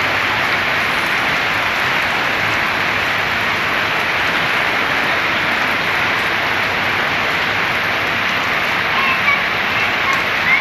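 Heavy rain pouring down, a loud steady hiss, with a few faint short chirps near the end.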